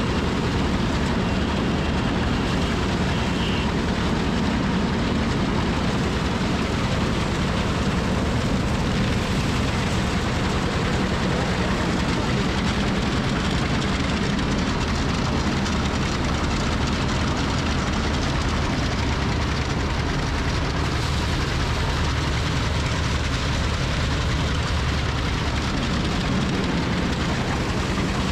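Power-driven paddy thresher running steadily, its belt-driven drum beating rice sheaves as they are fed in and throwing out the threshed straw: a constant mechanical hum under an even rattling rush.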